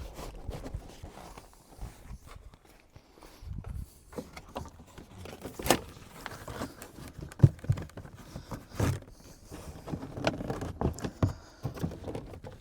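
Scattered knocks, clunks and rustling of hands moving a car's rear seats and handling the plastic interior trim, with a few sharper knocks about six, seven and a half and nine seconds in.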